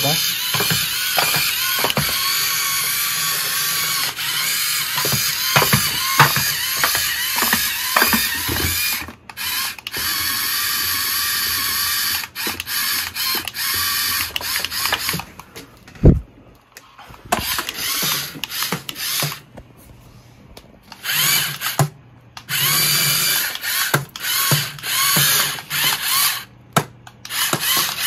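Small electric drive motor and gearbox of a homemade remote-control tractor whining as it drives, stopping and starting several times. The gearbox is geared for pulling power rather than speed, so the model moves slowly. A sharp knock comes about sixteen seconds in.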